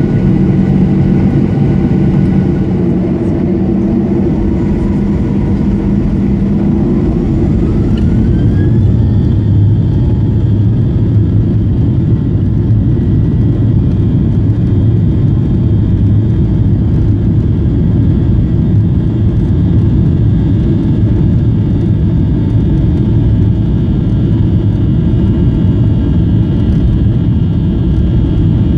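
Boeing 737-800's CFM56-7B jet engines, heard inside the cabin over the wing, spooling up to takeoff thrust. A rising whine climbs through the first several seconds, then the engines hold steady at takeoff power with a deep rumble as the takeoff roll begins.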